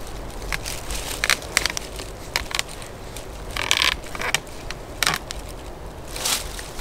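Handling noise from a camera being fixed to a tree on an arm mount: irregular crackles, scrapes and clicks, with rustling of dry leaves and clothing.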